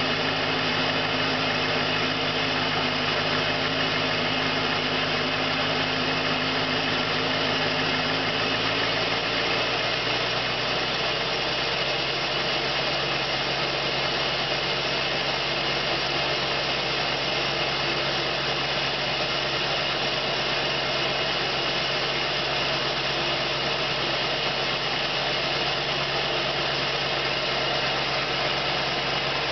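Ford 7.3 L Powerstroke turbo-diesel V8 of a 2001 F-250 idling steadily at the tailpipe as it warms up after a cold start at 24 °F. About nine seconds in, the note of the idle shifts slightly and then holds steady.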